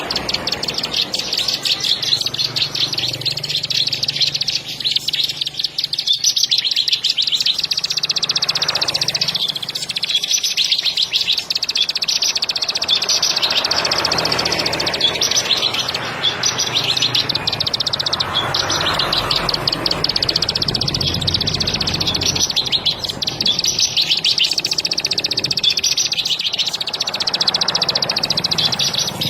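Ciblek sawah (plain prinia) singing a long, rapid, high-pitched trill of quickly repeated notes, the continuous 'ngebren' song, with short breaks.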